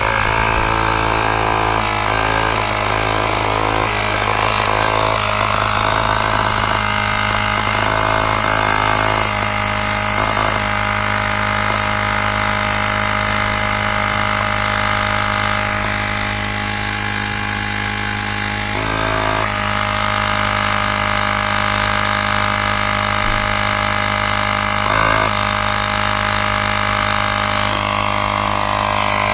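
Cordless portable tyre inflator's small air compressor running steadily with a loud, even low hum.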